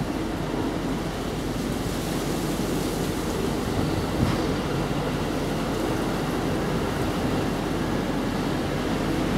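Steady low rumbling outdoor background noise, with a small knock about four seconds in.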